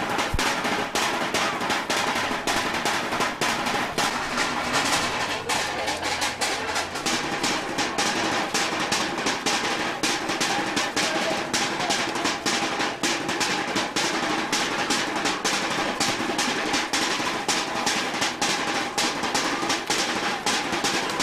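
Drums playing a fast, busy rhythm of quick, closely spaced strokes, with rolls.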